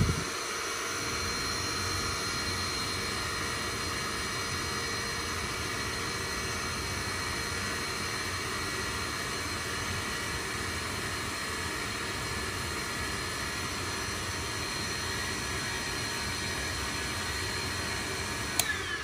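Bissell vacuum cleaner running steadily with its hose off, a constant rush of air and motor whine heard through a closed door. It is being left to idle so that dust loosened by the cleaning blows out. A single click comes near the end.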